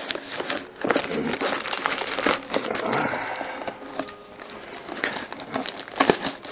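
Plastic packaging film crinkling and tearing as it is pulled off a small box by hand: a dense run of irregular crackles.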